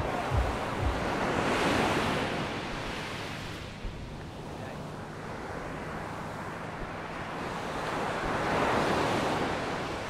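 Small sea waves breaking and washing up a sandy beach, the surf swelling twice about six to seven seconds apart, with wind on the microphone.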